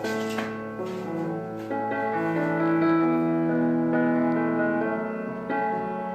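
Background music: a piano melody of held notes.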